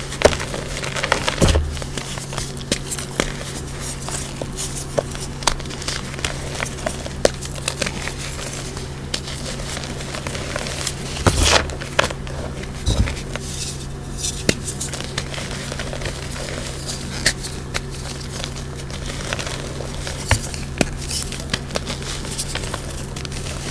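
Reformed pressed gym chalk crushed and crumbled between the hands in loose chalk powder: dense, crisp crackling and crunching with many sharp snaps, a few heavier crunches about halfway through.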